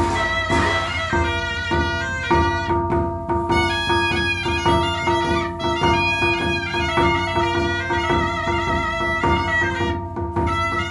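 Instrumental music: a bowed string melody with vibrato over a steady held drone note, with quick note changes.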